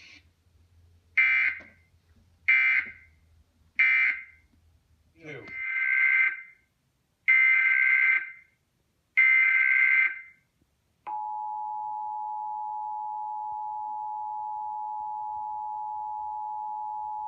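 Emergency Alert System signalling: three short SAME data bursts, the end-of-message code closing the warning, then three longer SAME header bursts opening the next alert. From about 11 seconds in, the steady two-tone EAS attention signal follows.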